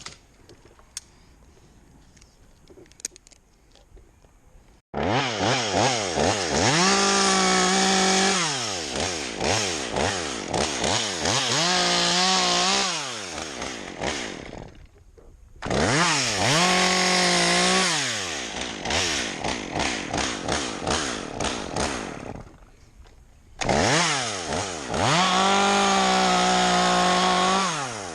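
Chainsaw starts up about five seconds in and runs at high revs in three long bursts with short pauses between, its pitch dipping and recovering again and again within each burst.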